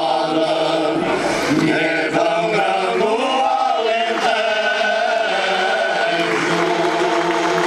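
Male choir singing cante alentejano unaccompanied, in many voices together. The chord moves in the first half, then settles into a long held chord from about four seconds in. Audience applause begins to rise near the end.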